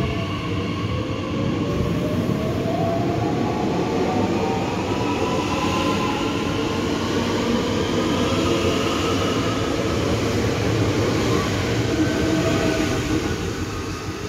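Red DB Regio Bombardier Talent 2 electric multiple unit accelerating past the platform. The traction motors give a whine that rises in pitch over the steady rumble of the wheels on the rails.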